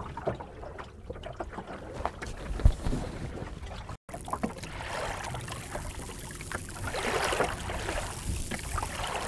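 Water sloshing and splashing along the hull of a small open sailing dinghy, a Welsford Navigator under sail, with a few scattered knocks. The sound breaks off for an instant about four seconds in.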